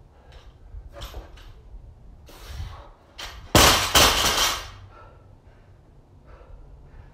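A 135-lb barbell with rubber bumper plates dropped onto rubber floor mats after a squat clean. It lands with a loud crash about three and a half seconds in, hits again a moment later on the bounce, and the plates rattle away over about a second.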